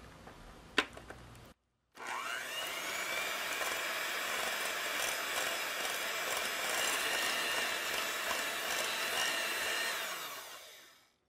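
Electric hand mixer on low speed beating slices of slightly firm butter in a glass bowl: the motor whine rises as it starts, runs steadily for about eight seconds, then fades out. A single sharp click comes about a second in, before the mixer starts.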